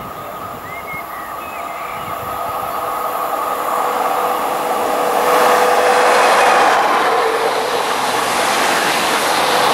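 Bombardier Régio2N double-deck electric train approaching and passing close by. Its rail noise grows steadily louder to a peak about six seconds in, with a steady tone running under it.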